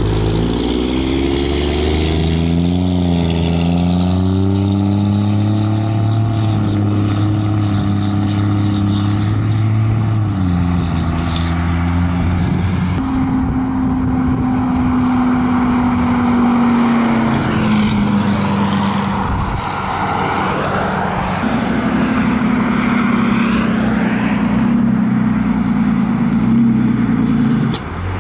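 Ram dually pickup's Cummins turbo-diesel running loud as the truck drives past, its engine pitch wavering and then dropping about ten seconds in, with tyre and road noise from passing traffic in the second half.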